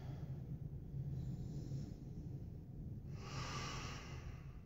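A person breathing during a held yoga stretch: a faint breath about a second in, then a fuller audible breath of about a second, about three seconds in, over a low steady hum.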